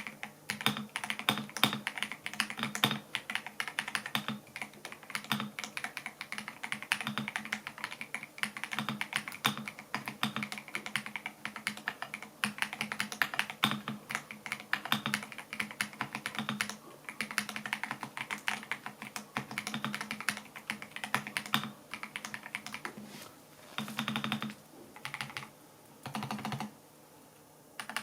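Fast typing on a gasket-mounted mechanical keyboard with pre-lubed PIIFOX Dark Warbler linear switches and ASA-profile double-shot keycaps: a dense run of key strokes that thins to a few short bursts near the end.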